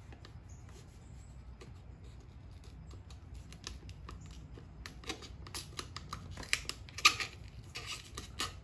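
Air cleaner trim badge being pried and peeled off a chrome air cleaner cover, its double-sided adhesive tape letting go. It is quiet at first, then from about five seconds in there is a run of crackling clicks and snaps, loudest about seven seconds in, as the badge bends and pulls free.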